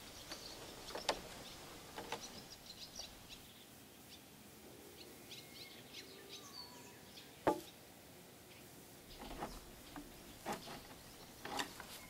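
Scattered knocks and clicks of logs, pole and wire being handled, the sharpest about seven and a half seconds in and a cluster near the end, over faint bird chirps.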